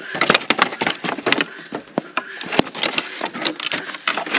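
Wooden pallet boards knocking and clattering as a pallet gate is wrenched loose and moved, a rapid, irregular run of sharp wooden knocks.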